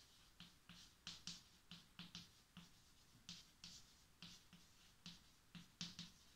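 Chalk writing on a chalkboard: a faint, irregular run of short scratching strokes, about three a second, each with a light knock of the chalk against the board.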